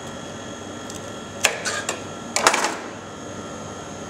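Kitchen knife knocking and scraping against a plastic chopping board while the knuckle is trimmed off a chicken leg: a few short clicks about a second and a half in, then a quicker cluster of taps around two and a half seconds. A steady background hum runs underneath.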